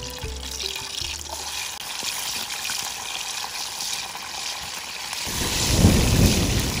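Garlic cloves sizzling in hot oil in a metal pan over an open wood fire, a steady hiss that grows stronger near the end. Low gusts of wind buffet the microphone in the last second and a half.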